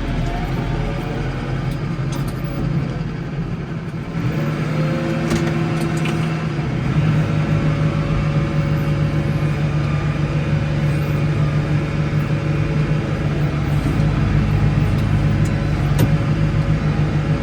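Case 115U tractor engine running steadily. Its note rises about four to seven seconds in, then holds at a higher, louder pitch. A few faint clicks are heard along the way.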